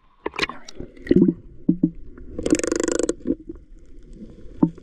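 Water sloshing and gurgling, heard muffled with the microphone going under water, with scattered clicks and knocks from hands working on the submerged engine. About two and a half seconds in comes a short burst of rushing, bubbling noise lasting under a second.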